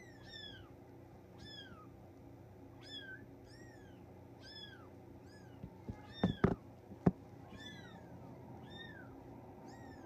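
Three-week-old Bengal kitten crying over and over: short high mews, about one or two a second, each falling in pitch, the distress of a kitten that doesn't feel secure held up in the air. A few sharp knocks a little past the middle are the loudest sounds.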